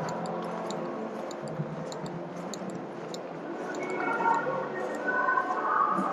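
Shopping-mall interior ambience: a steady bed of mixed tones with faint background music, and light clicks several times a second. About four seconds in, louder higher tones come in over it.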